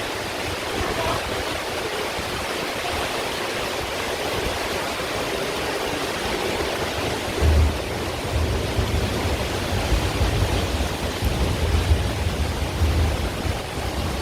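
Heavy monsoon rain pouring down in a steady hiss. About halfway through, a low, uneven rumble joins it.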